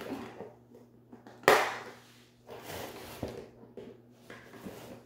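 Scissors cutting into a cardboard box: one loud sharp snip about a second and a half in, then a few quieter snips and scrapes.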